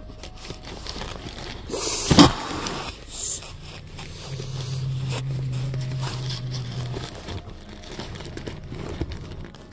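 A stray cat hisses once, short and sharp, about two seconds in, then growls low and steadily for about three seconds: a warning between the two cats. Light rustling of cardboard runs underneath.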